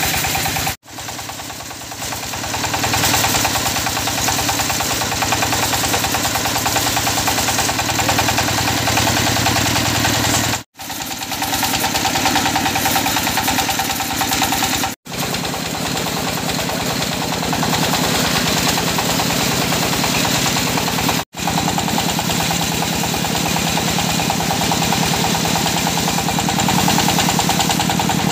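Stationary single-cylinder diesel engine running with an even, rapid beat, powering a belt-driven circular sawmill. The sound breaks off abruptly four times and picks up again.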